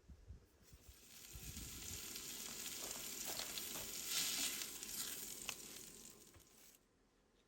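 Food frying in butter in a pan: a steady sizzle with small crackles and pops, swelling after about half a second and cutting off suddenly near the end.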